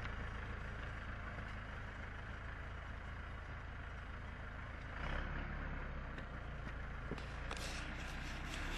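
Backhoe loader's diesel engine idling with a steady low hum, a little louder about five seconds in. Near the end there is crackly rustling.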